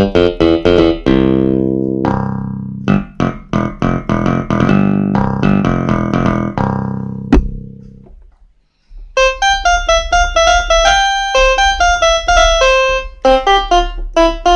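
Kawai FS660 portable keyboard playing a quick run of notes and chords on one built-in tone. About seven seconds in there is a single click of the tone-selector button, then a short silence, and the next preset tone plays a brighter, higher melody.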